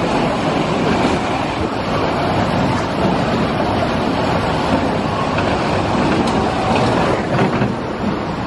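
Spinning roller coaster car rolling along its steel track, a steady rumble of wheels on the rails with a few light clicks near the end.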